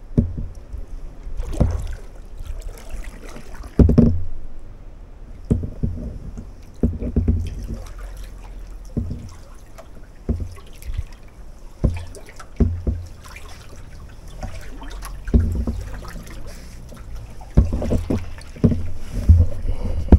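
Kayak paddle strokes: the blades dip and splash in the water at an uneven pace, one stroke every second or two.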